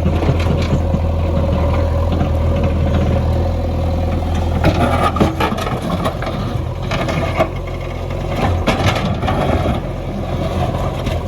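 JCB backhoe loader's diesel engine running steadily, with bursts of metallic clanks and knocks from the working machine about halfway through and again a few seconds later.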